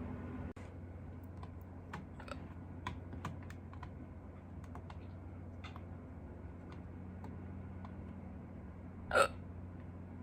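A person hiccuping once, sharply, near the end. Before it come a dozen or so faint scattered clicks over a low steady hum.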